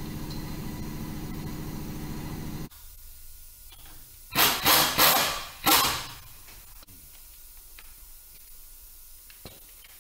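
A motor hums steadily and cuts off abruptly about two and a half seconds in. A little later come four short, loud hissing spray blasts in quick succession.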